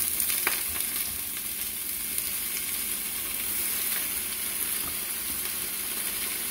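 Washed spinach leaves sizzling steadily in a hot pan with a little oil and chopped green onion, their water spitting in the hot oil.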